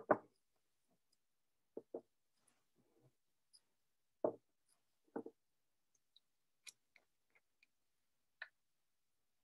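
Scattered light knocks and clicks of small objects being handled and set down on a table while communion elements are readied, a dozen or so brief sounds with dead silence between them.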